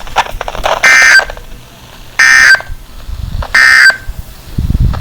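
Emergency Alert System end-of-message signal: three short, loud bursts of digital SAME data tones, about a second and a half apart, marking the end of the warning broadcast.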